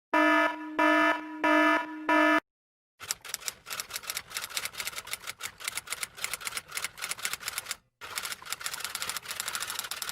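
Four short electronic buzzer beeps, then a typewriter's keys clacking rapidly and unevenly, with a short pause about eight seconds in.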